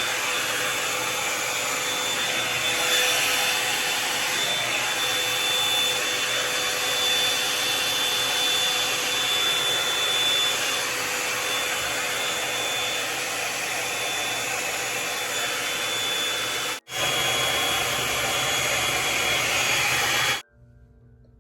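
Revlon One-Step hot-air dryer brush running steadily while blow-drying thick hair: a whooshing blower with a thin high whine. It cuts out for an instant about three-quarters of the way through and stops suddenly near the end.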